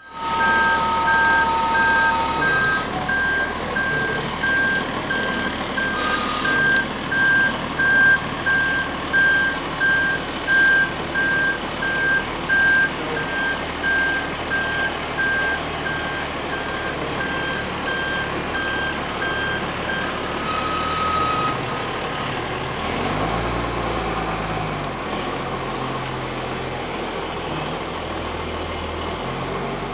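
Railway level crossing warning bell ringing in quick repeated dings, stopping after about twenty seconds, with a two-note train horn sounding as it begins and a shorter horn note about 21 seconds in. Near the end the low rumble of the freight train's diesel locomotives grows as they approach.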